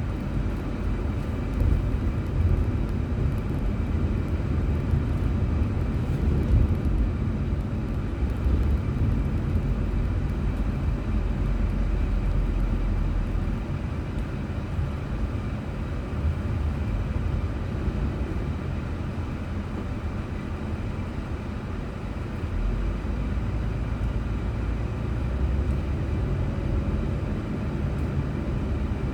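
Car driving on a road, recorded by an in-car dashcam: a steady low rumble of engine and tyre noise that eases a little midway and picks up again.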